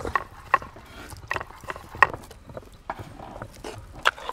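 A series of sharp, irregular clicks and taps from hand food preparation, a few to a second, with no steady sound beneath them.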